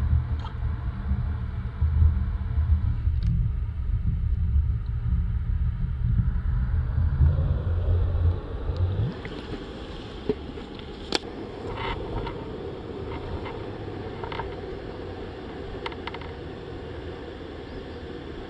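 Water heard with the microphone submerged in a creek: a loud, muffled low rumble for about eight seconds, then a quieter, even hiss of flowing water with a few small clicks.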